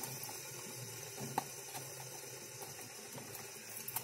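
Small cardboard box worked open by hand: a few light clicks and scrapes over a faint, steady hiss.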